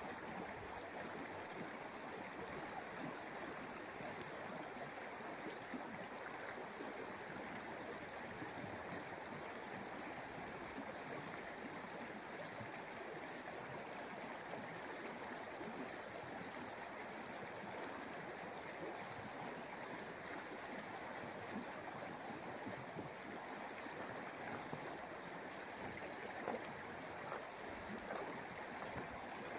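Shallow stream running over rocks, a faint steady babble, with a few soft knocks near the end.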